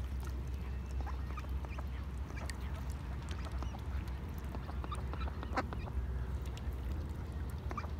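Mallards making scattered short quacks over a steady low rumble.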